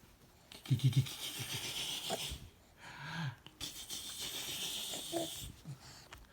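Funny wheezing, breathy noises: two long hissing breaths with a few short, low grunts, the first about a second in and another about three seconds in.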